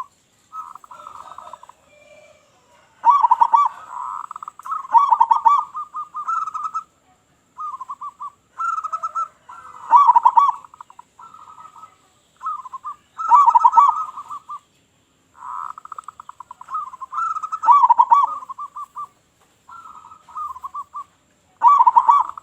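Local perkutut (zebra dove) cooing: repeated fast-pulsed coo phrases come in clusters every three or four seconds, with short pauses between them.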